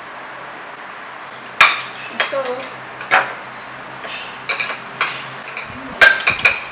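Metal fork and chopsticks clinking and scraping against ceramic bowls as instant noodles are mixed with hot sauce. The irregular sharp clinks start about a second and a half in, with the loudest cluster near the end.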